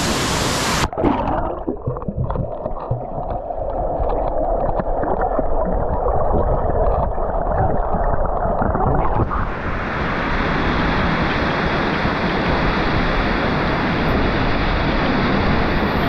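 Waterfall rushing into its plunge pool, heard by a camera that dips underwater: about a second in the sound turns muffled and low, with scattered bubbling clicks. After about nine seconds the camera surfaces and the full, steady rush of the falls returns.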